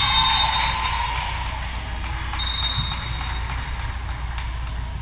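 Volleyball gym crowd noise: many voices of spectators and players calling out and cheering together, with scattered short taps and claps. Two brief high-pitched tones sound, one at the start and one about two and a half seconds in.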